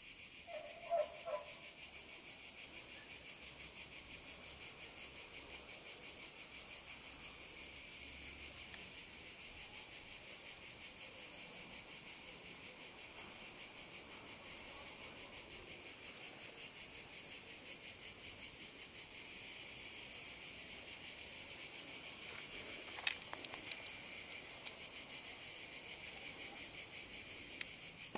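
Insects singing in a steady, high-pitched, finely pulsing chorus. A single sharp click comes about four-fifths of the way through.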